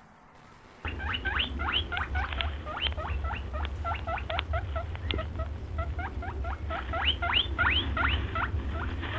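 Electronic crop-protection scarer sounding through its loudspeaker: a rapid string of squeaky calls, each rising in pitch, several a second, over a low hum. It switches on suddenly about a second in.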